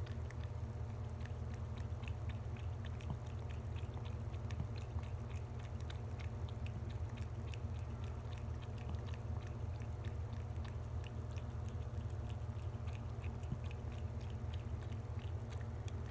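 A cat lapping water from a stainless steel bowl with its tongue: a quick, steady series of small wet clicks, over a steady low hum.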